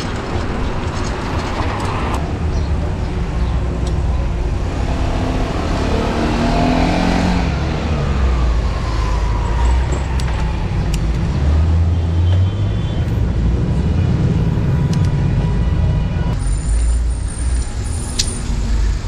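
Road traffic heard from a moving bicycle: vehicle engines run close by over a steady low rumble. About six seconds in, an engine revs up with a rising pitch, followed by a slowly falling whine.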